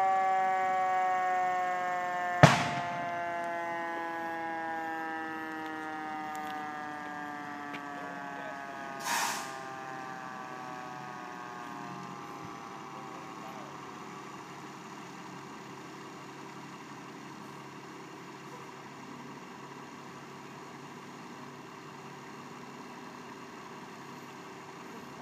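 Fire engine's siren winding down, its tone sliding slowly lower and fading away over about ten seconds. A sharp bang about two and a half seconds in is the loudest moment, and a short hiss comes around nine seconds, over a low steady engine rumble.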